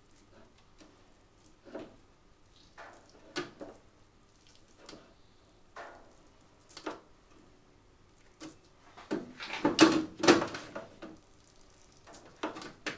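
Irregular knocks and scrapes from uncapping a wax-capped honeycomb frame with a heated electric uncapping plane on a metal uncapping stand. A busier run of knocks comes about nine to ten and a half seconds in.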